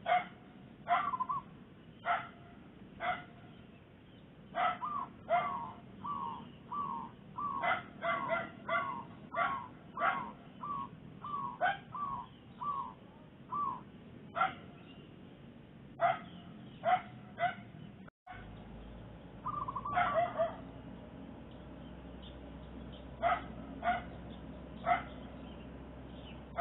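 A dog barking repeatedly, single sharp barks about a second apart, with a quicker run of shorter, higher calls about two a second through the middle; the barking thins to a few spaced barks near the end.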